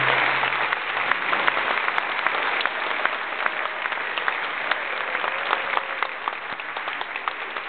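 Audience applauding, many hands clapping, while the last held note of the song's accompaniment dies away in the first second.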